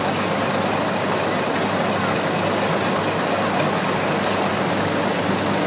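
A large engine running steadily, with a constant low hum.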